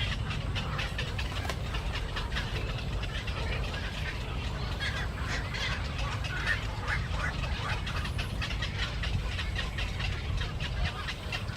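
A flock of birds calling and chattering continuously, many short overlapping calls, over a steady low rumble.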